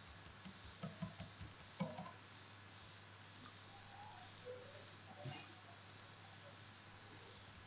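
Faint computer mouse button clicks: a quick cluster of clicks about a second in, then a few scattered clicks, over a low steady hum.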